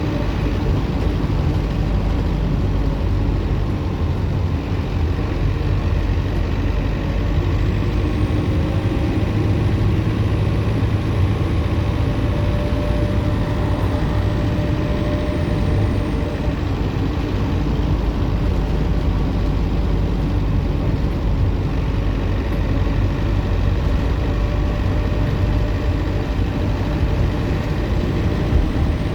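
Optare Solo M950 midibus's diesel engine running under way with a steady low rumble. Its turbocharger adds a faint high-pitched whine that rises about a quarter of the way in, fades before the middle, and returns briefly.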